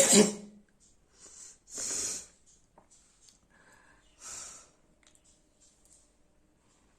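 A person blowing their nose hard: a loud honking blow right at the start, then shorter, breathy nasal blasts about two seconds in and again about four and a half seconds in.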